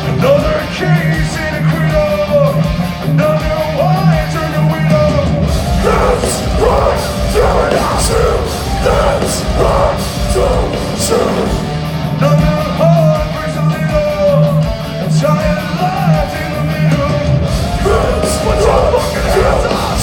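A heavy metal band playing live and loud: electric guitars, bass and drums, with a singer's yelled, sung vocals over them.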